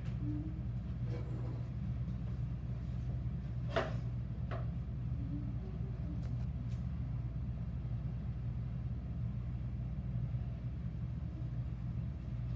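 A steady low machine hum, with two light knocks under a second apart about four seconds in.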